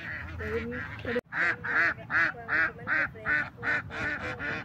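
Waterfowl calling in a rapid series of repeated honks, nearly three a second. The sound drops out for an instant about a second in, then the honking comes back louder.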